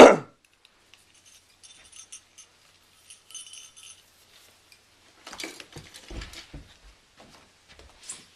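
Christmas ornaments and their hooks clinking and jingling lightly while being handled, with a brief loud bump right at the start and a cluster of rustling and low bumps a little past halfway.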